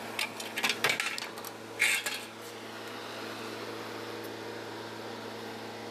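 Metal clinking and clattering as a radiator core and tools are handled on a workbench, a handful of sharp knocks in the first couple of seconds, the loudest about two seconds in. A steady machine hum runs underneath.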